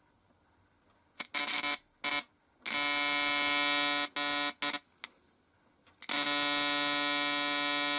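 Square-wave tone from an NE555 timer oscillator played through an LM386 amplifier and loudspeaker: a buzzy tone with many overtones. It starts about a second in, cutting in and out several times as the hand-held wire connection is made and broken, then holds steady for the last two seconds.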